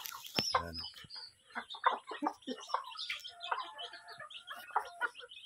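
Chickens clucking while they feed, with chicks peeping. The short calls overlap throughout.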